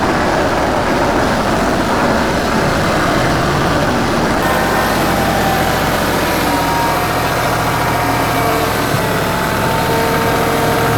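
TYM 2515H compact diesel tractor's engine running steadily up close. From about four seconds in, a few steady whining tones ride over it.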